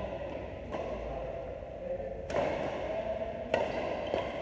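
Badminton racquets striking the shuttlecock in a rally: four sharp hits at uneven intervals, the middle two the loudest.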